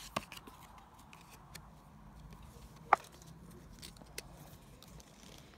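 Faint handling of a trading-card booster pack and its cards: a few scattered light clicks and taps. The sharpest comes about three seconds in, over low steady room noise.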